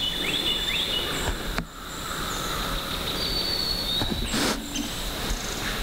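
Outdoor woodland ambience: a steady hiss with a thin, high, steady tone and a few short high chirps. There is a brief rustle about four seconds in.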